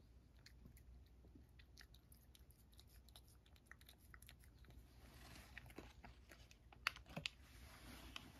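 A cat chewing small crunchy Churu Bits treats taken one at a time from fingers: faint, quick crunching clicks, with a couple of louder crunches about seven seconds in.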